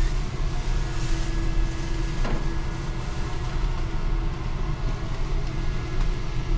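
Steady low rumble and constant hum of indoor machinery, with one faint click a little over two seconds in.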